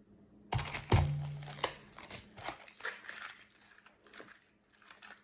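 Plastic snack wrappers crinkling and rustling as packages are handled and set down, with two heavier knocks about half a second and a second in.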